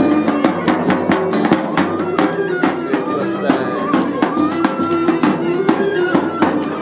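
Folk tune played on bagpipes, a steady drone under the melody, with a regular beat.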